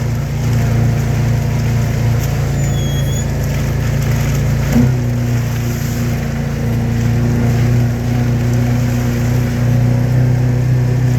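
A small vehicle's engine running steadily as it drives along, its note shifting slightly about five seconds in.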